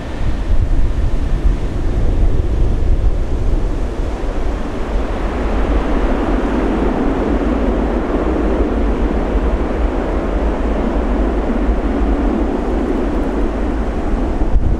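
Airbus A330 jet engines on landing approach passing by: a broad rush of engine noise that swells from about four seconds in, is strongest in the middle and eases near the end. Steady wind rumble on the microphone underneath.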